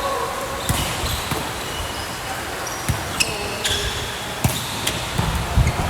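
Basketball being dribbled on a hardwood court in a gym, an irregular run of ball thumps that clusters near the end, with short high squeaks over a steady crowd-and-room background.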